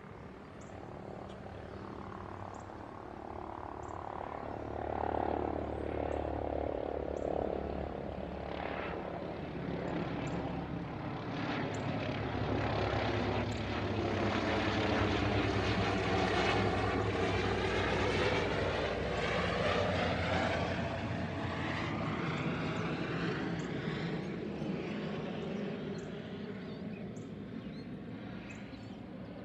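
Airbus H145 medical helicopter flying overhead, its rotor and engine sound growing louder to a peak about halfway through, then fading as it moves away.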